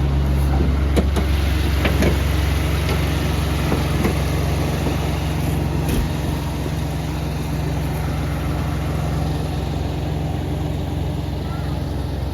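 A vehicle engine idling steadily, with a few light knocks in the first half.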